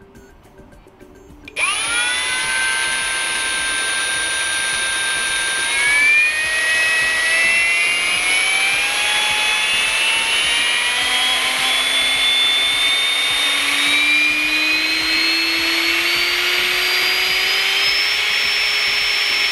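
Ryobi 18V ONE+ brushless hammer drill (R18PDBL) running with no load in first speed. It starts about a second and a half in, holds a steady whine, then speeds up slowly as the trigger is squeezed, its pitch rising gradually before it levels off near the end. This time it does not cut out.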